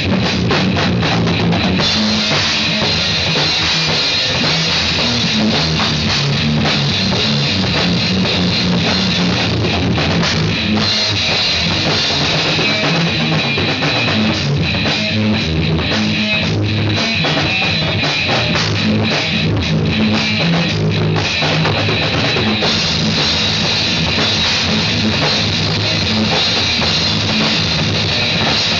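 Drum kit and guitar playing loud rock music together, with steady drumming that runs without a break.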